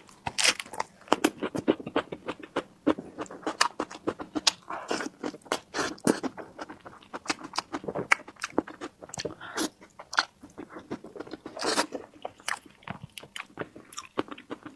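Close-miked eating: irregular crunching bites and wet chewing with many quick mouth clicks, continuing without pause.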